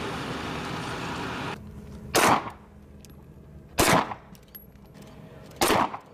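Three shots from a Beretta M9 9 mm pistol, about 1.7 seconds apart, each with a short echo. For the first second and a half there is a steady rushing background noise, which cuts off before the first shot.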